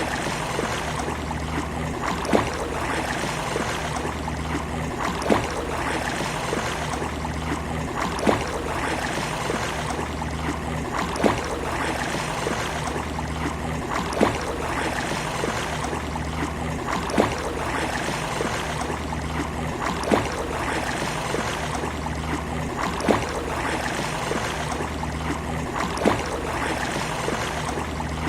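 Steady rush of sea waves, with a short sharp click about every three seconds.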